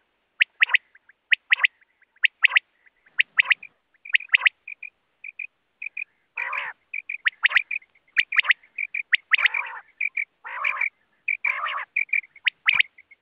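Common quail calling: repeated groups of short, sharp, high notes, mostly in threes, the quail's 'wet-my-lips' song, with several louder, harsher calls in between. This is a lure call recording played to draw quail.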